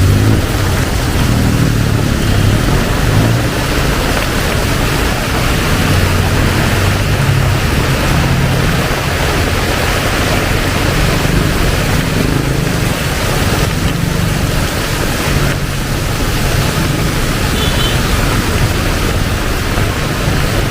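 Heavy tropical rain pouring steadily, with a continuous low rumble underneath.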